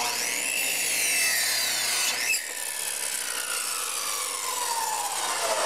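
Miter saw blade spinning down after a cut through pallet wood: the motor's whine falls steadily in pitch as the blade coasts to a stop.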